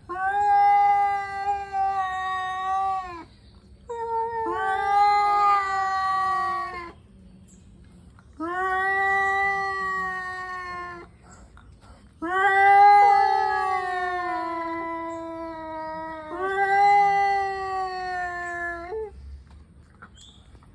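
Two male cats yowling at each other in a standoff: about five long, drawn-out howls of roughly three seconds each, with short pauses, the voices overlapping at times. This is the threatening caterwaul of tomcats squaring up before a fight.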